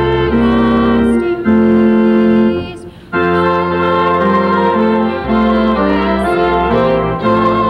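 Church organ playing slow, held chords over a bass line, with a short break about three seconds in.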